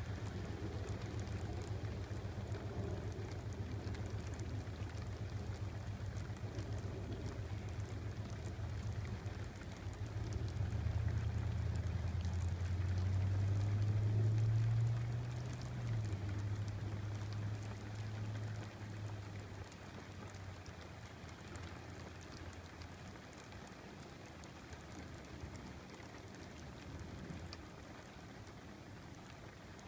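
Rain falling steadily, with a long low rumble of thunder that swells about a third of the way in and dies away over several seconds.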